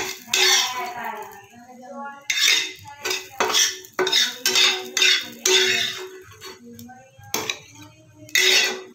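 Metal spatula scraping and knocking against a metal cooking pan of thick tarka curry, in a run of short strokes, about two a second, each leaving a brief metallic ring.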